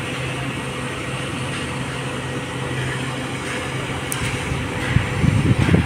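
Steady hum of construction-site machinery. A louder, uneven low rumble builds near the end.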